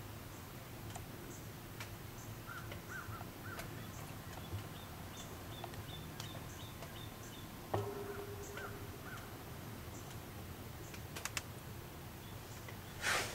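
Quiet garage room tone with faint, repeated high chirps. There is a click about eight seconds in and a short rush of noise just before the end.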